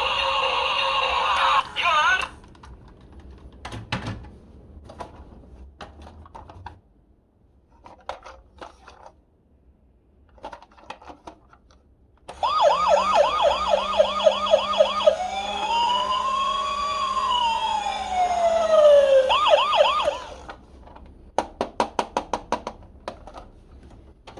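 Toy ambulance minicar's electronic siren sound playing for about eight seconds in the second half: fast yelping sweeps, then one slow wail that rises and falls, then yelping again before it cuts off suddenly. Before it, an electronic tone stops about two seconds in, followed by quiet scattered clicks. Near the end comes a quick run of clicks, about seven a second.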